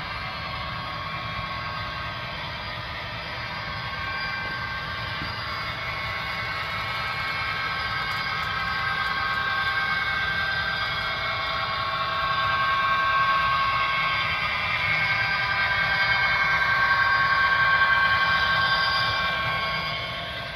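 Model Union Pacific SD70M diesel locomotive running along the track with a steady whine from its motor and gearing and the rumble of wheels rolling on rails. It grows louder as the train approaches and the loaded coal hoppers pass, then drops away near the end.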